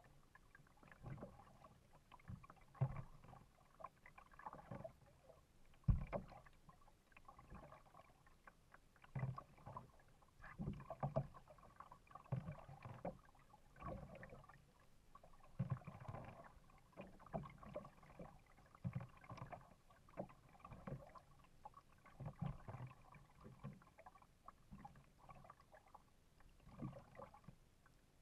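Kayak paddling: the paddle blades dip and splash in the water in irregular strokes every second or two, with water sloshing against the kayak's hull and a sharp knock about six seconds in.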